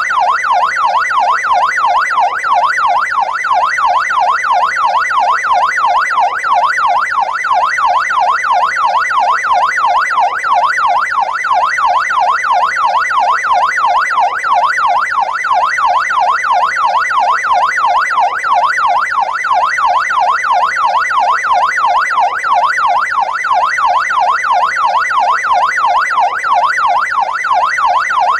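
Electronic ambulance siren in fast yelp mode: a loud tone sweeping rapidly up and down, several times a second, without a break.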